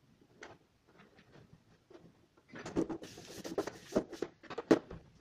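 Handling noise from a flat LED TV panel being gripped and shifted: scattered taps, then a cluster of knocks and rubbing from about halfway, with the loudest knock near the end.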